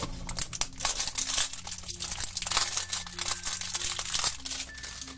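Clear plastic wrapping crinkling as it is torn and peeled off a small toy package by hand: a dense, irregular run of crackles that thins out near the end.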